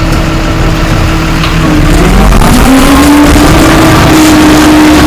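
A motor vehicle engine running loudly, rising in pitch about two seconds in as it speeds up, then holding steady.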